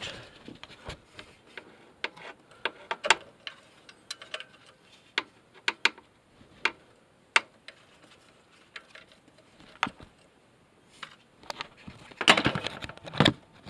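Irregular light clicks and taps of hands and parts being handled in a car's engine bay, with a denser, louder clatter of them near the end.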